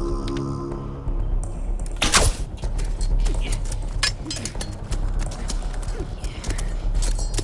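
A loud sudden hit about two seconds in, then irregular knocks and scrapes of hand tools striking and shifting earth as a crowd of people digs in a pit.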